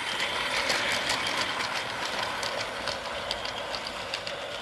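Battery-powered toy train running on O-gauge three-rail track: a steady whirring rattle of the cars rolling, with frequent small clicks of the wheels on the track.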